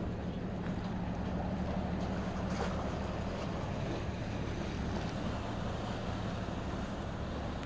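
Steady wind and sea noise, with wind buffeting the microphone and a low steady hum underneath.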